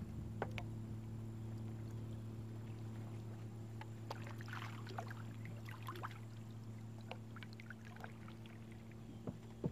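Kayak paddling: light splashes and drips of water from the paddle blades, over a steady low hum, with a couple of louder knocks near the end.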